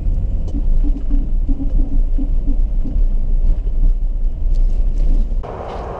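Steady low rumble of a vehicle's engine and tyres heard from inside the cabin while driving slowly along a paved road; the rumble falls away near the end.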